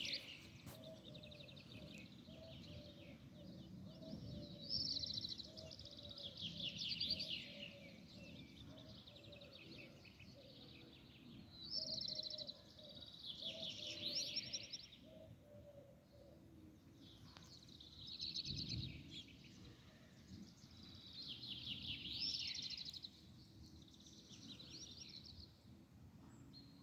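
A songbird singing repeated short phrases of rapid, high trilled notes, one every few seconds.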